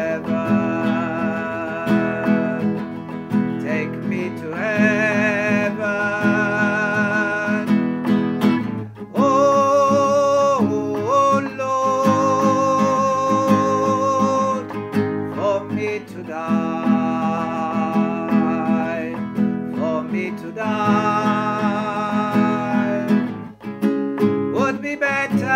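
A slow devotional song: acoustic guitar strumming under a voice holding long notes with vibrato, in several drawn-out phrases with short breaks between them.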